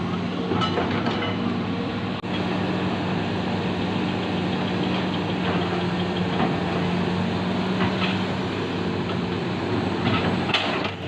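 Hitachi ZX200 excavator's diesel engine running steadily, with a few short knocks and scrapes from the machine's work.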